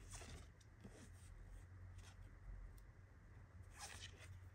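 Faint slide and rustle of glossy card postcards being flipped through by hand, one card slid off the stack at the start and another near the end.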